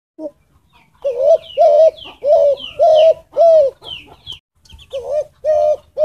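Spotted dove cooing: a run of about five low coo notes, then after a short pause three more.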